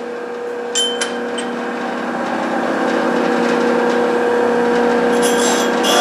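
Connecting-rod cap cutter running with a steady motor hum, with a couple of sharp clicks about a second in. From about five seconds the cutter starts biting the cap face with an intermittent rasping chatter, a sound the machinist takes for a cap not cut right at the factory.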